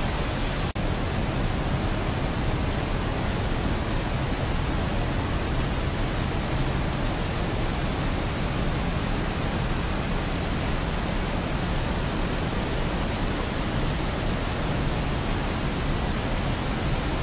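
Steady rain as an even, unbroken hiss, with a split-second dip in level just under a second in.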